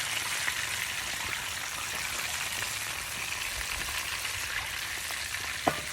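Catfish frying over a rocket stove: a steady sizzle with fine crackle. A single sharp click comes near the end.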